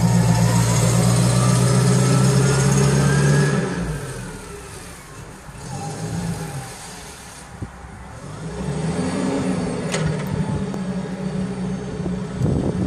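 Yale GLP25VX LPG forklift's engine running as the truck drives close past, loud for about four seconds and then fading as it moves off. The engine note builds again later as the mast is raised, with a single sharp click along the way.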